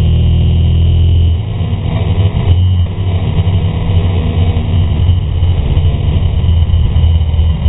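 Sport motorcycle engines running hard under acceleration, heard through a bike-mounted camera with rough wind rumble on the microphone. The sound is steady at first, then turns choppier and a little quieter about a second and a half in.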